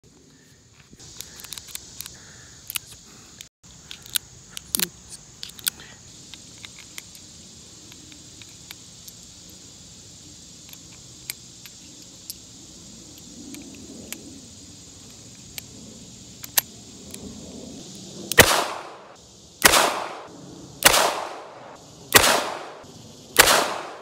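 Charter Arms Bulldog .44 Special five-shot revolver being loaded, with scattered light metallic clicks of cartridges going into the open cylinder. About 18 seconds in, five loud shots follow about a second and a quarter apart, each ringing off.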